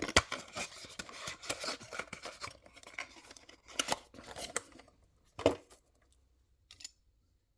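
Plastic and cardboard packaging of a diecast model car box being handled: scratchy rustling and scraping for about five seconds, then a sharp click about five and a half seconds in.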